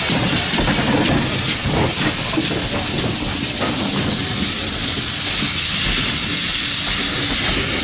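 GWR 57xx-class pannier tank steam locomotive 7714 passing close by, with steam hissing, followed by its coaches rolling past on the rails.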